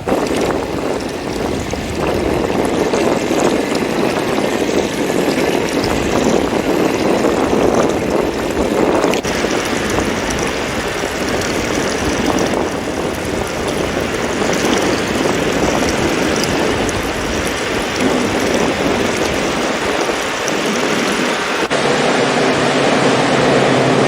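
Ocean waves breaking and washing on a beach: a steady rush of surf that swells and eases. A steady low hum joins near the end.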